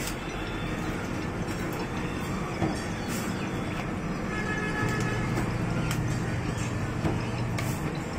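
Soda bottle-filling machine running with a low steady hum, stronger in the second half. Sharp clicks and knocks come every second or two as empty PET bottles are clipped onto the filling heads.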